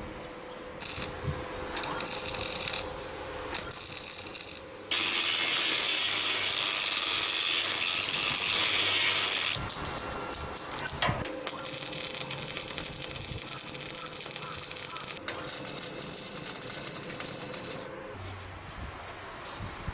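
Semi-automatic wire-feed (MIG) welding arc crackling and hissing on a stainless steel truck-bed floor, in several runs that stop and start, the loudest from about five to nine and a half seconds in, ending near the end. A steady hum runs under it.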